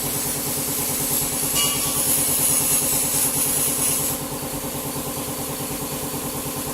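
Double-head aluminium cutting saw running steadily, its blades cutting through a 5 mm aluminium profile with a high hiss for about the first four seconds. After that the cut ends and the motor runs on alone.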